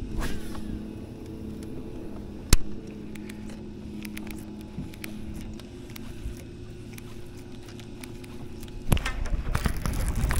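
Steady hum of a boat motor, with one sharp click about two and a half seconds in and a louder rush of noise starting about a second and a half before the end.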